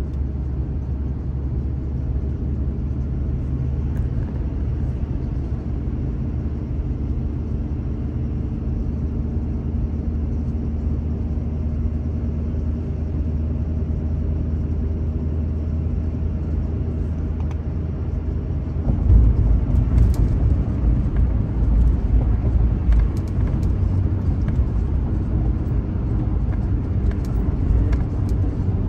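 Steady road noise of a truck towing a car-hauler trailer: engine hum and tyre rumble heard from inside the cab. About nineteen seconds in it turns louder and rougher, a deeper rumble with a few knocks.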